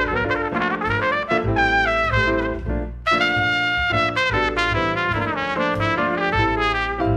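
Jazz trumpet playing a quick, bending melodic line over upright double bass and piano. The trumpet phrase breaks briefly about three seconds in, then goes on.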